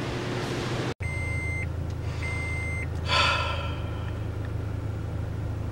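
Steady low engine hum heard inside a car's cabin. About a second in come two electronic beeps in a row, each just over half a second long, then a brief falling breathy vocal sound like a gasp.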